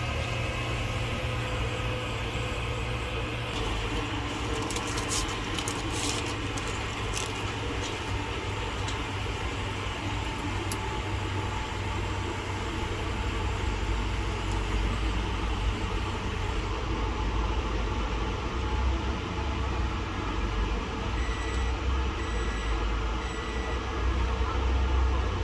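A steady low machine hum with a run of sharp clicks, then three short electronic beeps near the end.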